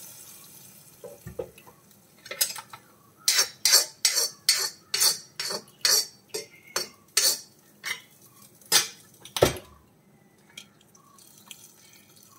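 Steel spoon scraping and tapping a heavy pan to empty the last of the fried tempering into the curry: a quick run of sharp metallic scrapes and taps, about three a second, ending in one louder knock.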